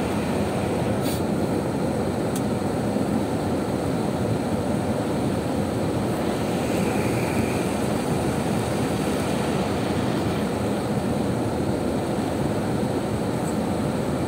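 Heavy rain pouring on a car's roof and windscreen, heard inside the cabin as a steady, dense rush. Two light clicks come about one and two and a half seconds in.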